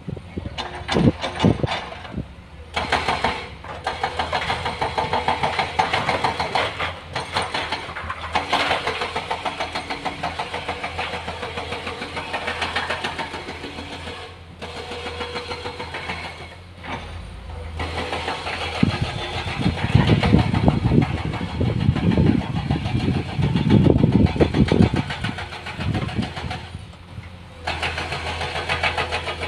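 Diesel engines of heavy earthmoving machinery, an excavator and a dump truck, running with a fast, even engine pulse. There are heavier low surges about two-thirds of the way through.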